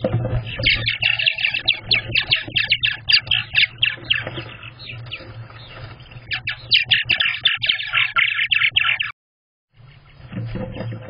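Purple martins calling in a fast, continuous chatter of short chirps and gurgles over a steady low hum. Everything cuts out briefly about nine seconds in, then fainter calls and the hum come back.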